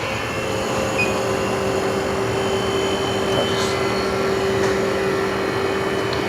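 LCD freezer machine running: a steady mechanical hum and rush, with a steady mid-pitched tone that comes in about half a second in.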